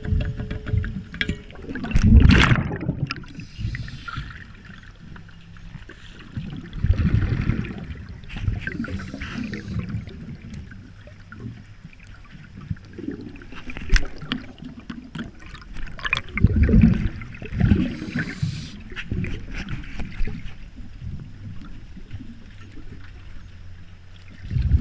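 Muffled underwater sound heard through a diver's camera housing: low bubbling rushes of the diver's exhaled breath every several seconds, with scattered small clicks and knocks.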